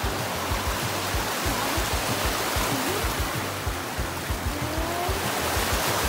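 Rushing stream water tumbling over rocks, heard together with background music.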